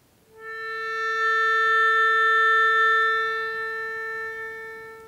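Melodica, blown through its flexible mouth tube, holding a single steady note; it comes in a moment after the start and fades out near the end.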